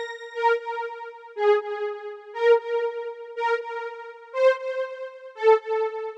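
K1 GTG software synthesizer played by the Blip2000 MIDI step sequencer: a slow sequence of sustained keyboard-like synth notes, a new note about once a second, stepping among a few nearby pitches.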